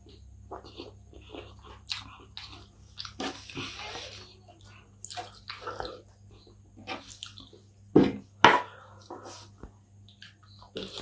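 Close-miked chewing of kottu roti: wet smacking and biting mouth sounds with many short clicks. There is a short rustle about three seconds in, and two louder smacks about eight seconds in.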